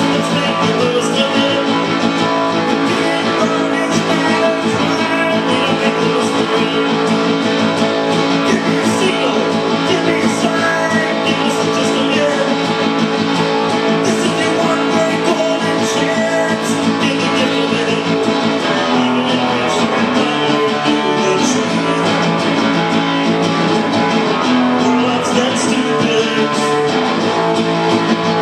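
Acoustic guitar strummed steadily through a full song passage, played live and amplified.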